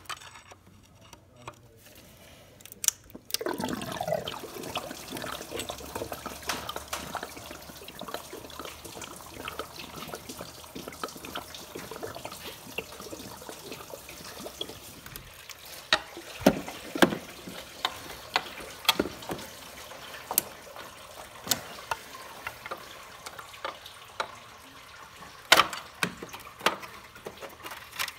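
Engine coolant pouring and splashing out of the engine block as the water pump is pried loose, starting about three and a half seconds in. Sharp metal clicks and taps from the pry bar run through it.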